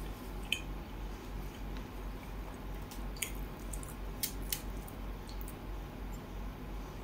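Bare fingers picking apart a fried whole fish on a steel plate: soft wet squishing with a few sharp clicks, over a steady low hum.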